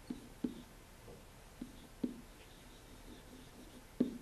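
Stylus tapping and scratching on a pen-input screen as a word is handwritten: several short, soft taps, the sharpest near the end.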